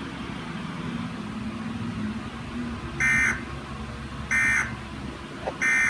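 Emergency Alert System end-of-message data tones: three short, identical, harsh buzzing bursts of SAME digital code, about a second apart, marking the end of the alert. A low steady hum comes before them.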